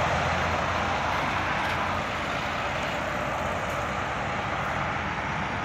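Heavy trucks passing on a highway: a low diesel engine hum fades over the first second or two, then steady road and tyre noise continues.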